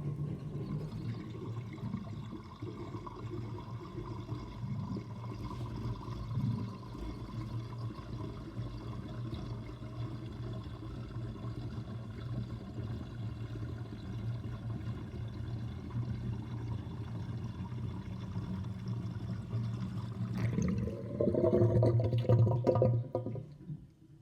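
Kitchen sink drain gurgling steadily as water runs down it with the overflow covered. About 21 seconds in the gurgle grows louder, with a rising tone, for a few seconds, then stops suddenly.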